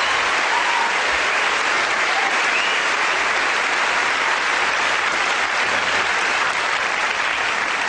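Theatre audience applauding steadily, welcoming a guest onto the stage.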